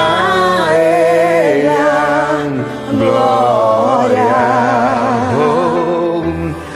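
A singer holding long, wordless notes with wavering vibrato and pitch slides, an ad-lib over a gospel karaoke backing track.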